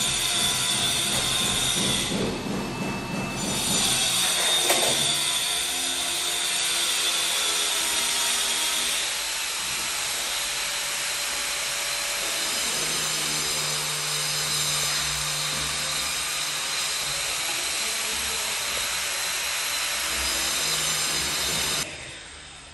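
An electric power tool running steadily under load, its motor pitch shifting now and then, cutting off suddenly near the end.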